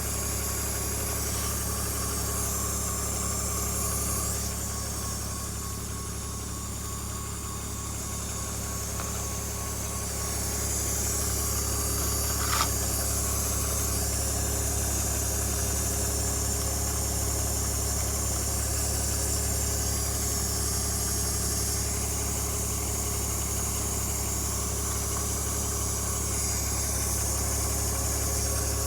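BMW E46 idling, heard from underneath: a steady low hum with a metallic, flowing hiss over it. The source and cause of the flowing sound are unknown to the owner. A single short tick comes about halfway through.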